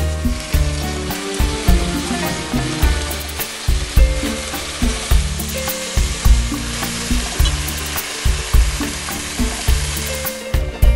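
Chicken pieces sizzling as they fry in hot olive oil with onion in a pot, the sizzle dying down near the end. Background music with a steady beat plays throughout.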